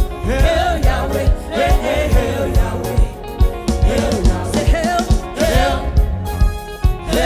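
Gospel song: a voice singing over a steady, regular beat.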